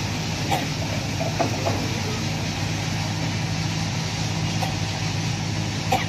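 Diesel engine of a Kobelco crawler excavator running steadily under its hydraulic load as the arm moves, with a few short knocks.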